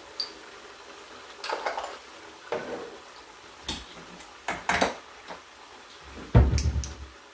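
Kitchen utensils and jars clinking and knocking while spices are being added: a series of separate short clinks, the loudest a heavier knock near the end.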